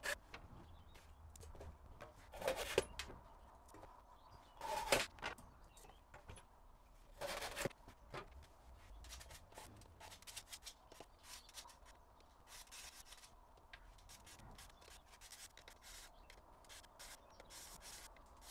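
Handsaws and small wooden blocks being handled on an MDF board: three short, louder scrapes in the first eight seconds, then light taps and clicks as pieces are set down.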